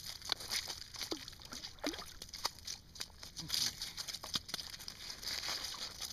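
A small northern pike flopping on crushed ice and slush beside an ice-fishing hole: irregular short knocks, slaps and crunches of ice chips, with a few brief falling squeaks mixed in.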